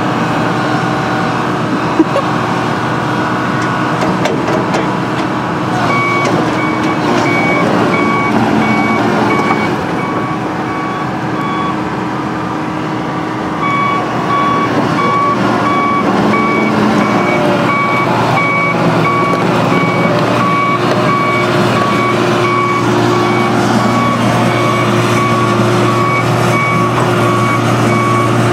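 Excavator engine running under load, with its travel alarm beeping steadily. The alarm starts about six seconds in, stops briefly, then resumes.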